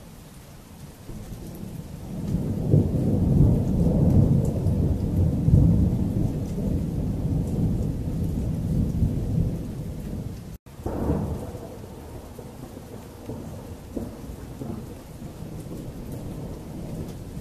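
Thunder rolling, deep and long: it builds over a couple of seconds and rumbles loudly for several seconds before easing. After a brief dropout, a sharper clap sets off a second roll that fades away, over rain falling steadily.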